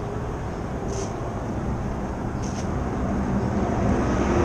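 Steady low rumble of road traffic, growing louder near the end, with two short high squeaks about one and two and a half seconds in.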